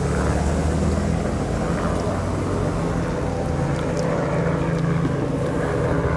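Road traffic passing close by: a steady, low engine drone from cars and motorcycles.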